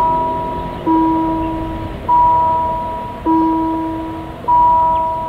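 Level crossing warning bell ringing, striking about once every 1.2 seconds and alternating a higher and a lower note, each strike dying away.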